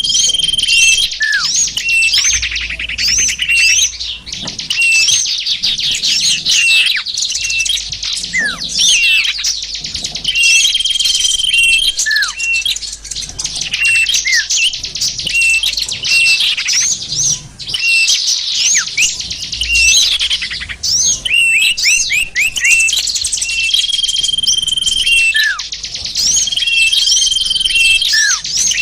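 A dense chorus of small songbirds: many overlapping high chirps and rapid trills, with short level whistles and falling notes recurring every second or so. It is a bird-lure (pikat) recording that mixes the calls of several small wild bird species to draw birds in.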